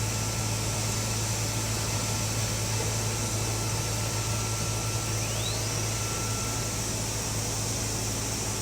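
CNC wood router running steadily: a low hum with a high hiss, and a faint short rising whine about five and a half seconds in.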